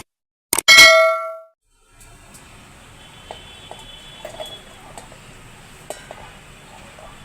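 A single loud metallic ding that rings and fades over about a second, followed by faint scattered clicks and clinks.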